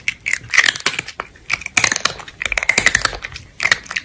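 Crunchy chewing and biting sounds: rapid, irregular crisp crunches and clicks.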